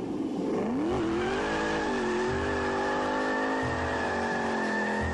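Noble M600's twin-turbo V8 revving up sharply about half a second in, then held at high revs while the rear tyres spin and squeal in a smoky launch.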